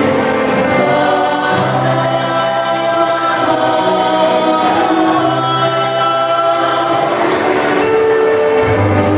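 Vocal group singing in multi-part harmony, holding long chords over a low bass part.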